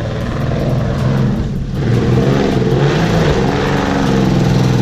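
Off-road vehicle engine running under load, its revs rising and falling, getting louder about two seconds in.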